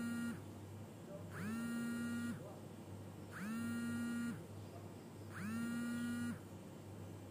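Mobile phone ringing on vibrate: its vibration motor buzzes in pulses of about a second, each starting with a quick rise, roughly every two seconds.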